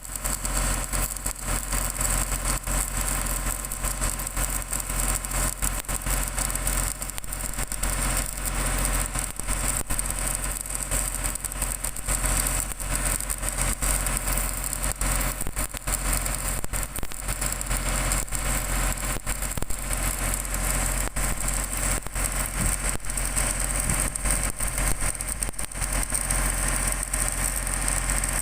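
Electric arc welding on a steel pipe flange: a continuous crackling sizzle from the arc, over a steady low hum.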